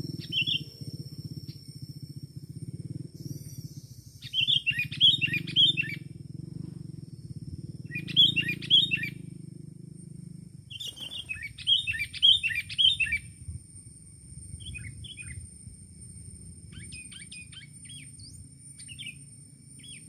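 Sooty-headed bulbul calling in three loud bursts of quick runs of notes, then softer short calls. A low steady hum underneath stops about halfway.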